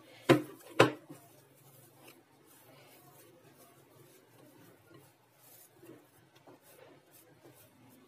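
Hands kneading a ball of ube dough in a glass bowl: two sharp knocks about half a second apart in the first second, then only faint handling sounds.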